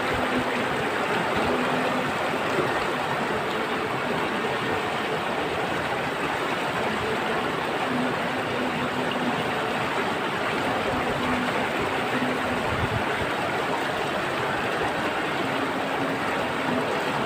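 Flowing water rushing steadily, like a stream, with a few faint brief hums under it.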